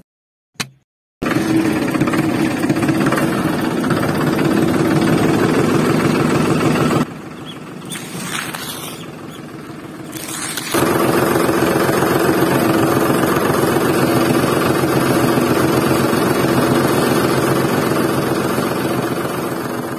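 A motor running loudly and steadily with a fast buzzing, engine-like sound. It starts about a second in, drops away for a few seconds around the middle, then comes back.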